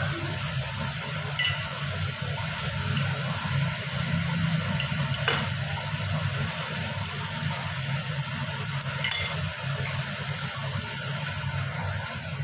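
Steady water-like hiss over a low hum, with a few light clinks of kitchen utensils about one and a half, five and nine seconds in.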